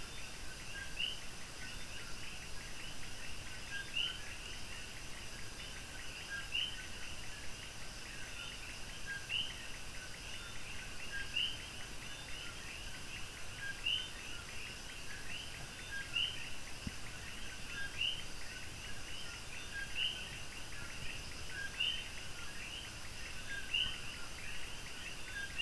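A short high chirp repeating about every two seconds over a steady background hiss.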